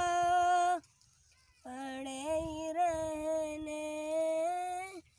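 A young boy singing an Urdu naat with no accompaniment. He holds one note, breaks off for about a second, then draws out another long, slightly wavering note.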